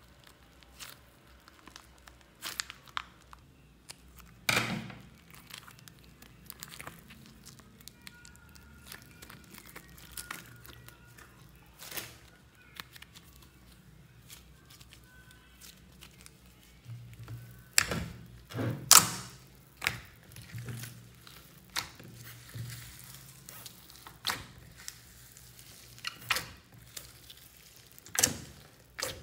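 Slime being squeezed, stretched and kneaded by hand, giving irregular sticky clicks, pops and crackles, with a tight cluster of louder pops a little past the middle. Foam beads mixed into the slime add a crunchy crackle.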